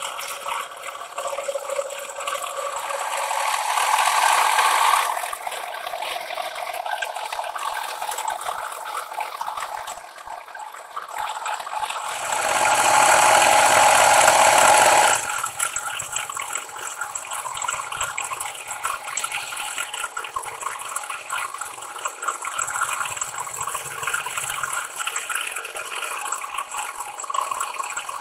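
Milling cutter on a planer mill's Bridgeport-style head taking a long beveling cut along a metal wear rail: a steady hissing, crackling cut with chips spraying and rattling. It swells louder twice, around four seconds in and from about twelve to fifteen seconds.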